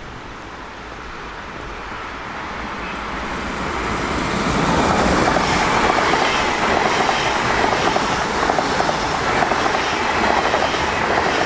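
An RRX Siemens Desiro HC double-deck electric multiple unit (class 462) approaching and passing at speed. Its wheel and rail noise grows over the first five seconds, then holds as a loud rush with rapid rail clatter as the cars go by.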